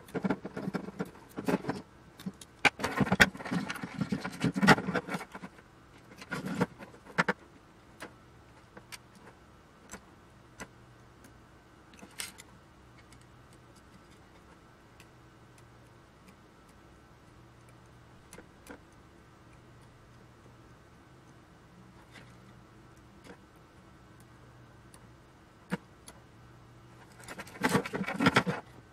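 Hands handling a wiring loom and small metal parts of a dismantled avionics box on a wooden bench: rustling, scraping and light metallic clinks. The handling comes in busy bursts for the first several seconds and again near the end, with scattered single clicks between.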